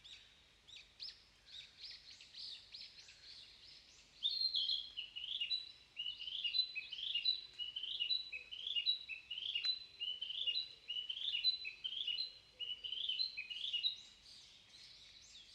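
Narcissus flycatcher singing: a loud run of short, repeated high phrases that starts about four seconds in and stops near the end, over fainter calls of other birds.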